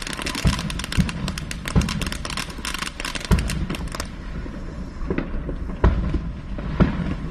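Fireworks going off: a rapid run of crackling bangs for about four seconds, then scattered single booms.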